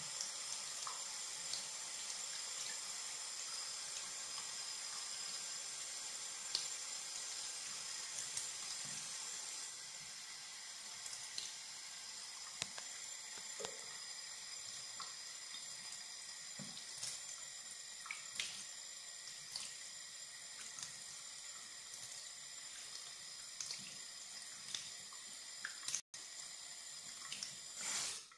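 Water tap running steadily into a sink while warm water is used to rinse a facial scrub off the face, with occasional small splashes.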